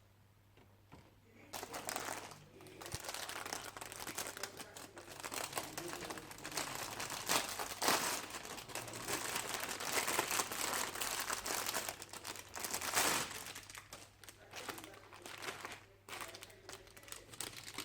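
Plastic packaging crinkling as art supplies are unwrapped by hand, starting about a second and a half in and thinning out near the end.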